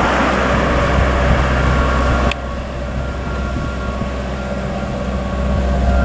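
Machinery running with a steady low hum and a broad hiss; a sharp click about two seconds in, after which the hiss drops away and the lower hum carries on.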